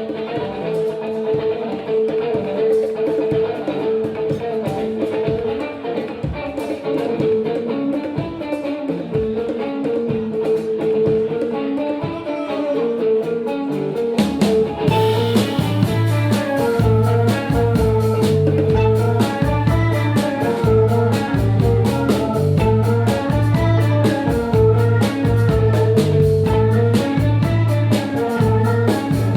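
Live band playing an instrumental groove: a repeating guitar riff carries the first half, then about halfway bass and a drum kit with cymbals come in and the full band plays on.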